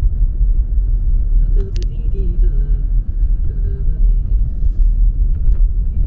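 Car cabin noise while driving: a steady low rumble of engine and tyres on the road, with a single sharp click about two seconds in.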